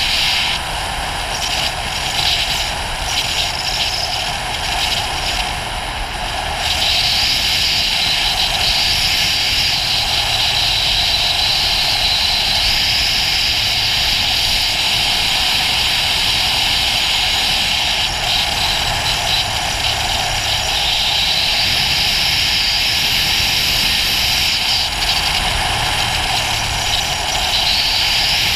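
Riding at speed on a Ducati GT1000 motorcycle: steady wind rush over the microphone mixed with the air-cooled V-twin's engine note. A little quieter for the first several seconds, then steady.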